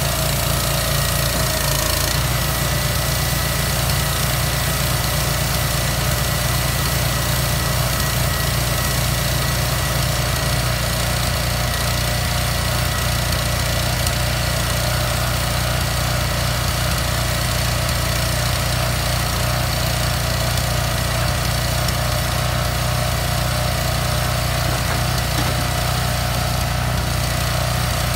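Diesel engine of a container-delivery truck with a hydraulic lifting frame, running steadily; its note shifts slightly about ten seconds in.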